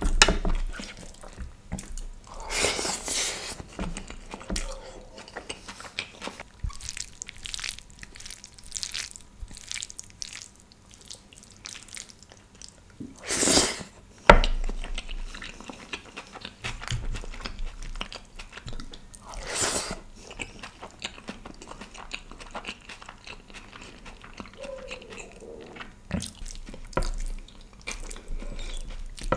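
Close-miked mouth sounds of a man eating rice mixed with curry by hand: wet chewing and lip smacks throughout. Three louder rushes of noise come about 3, 13 and 20 seconds in.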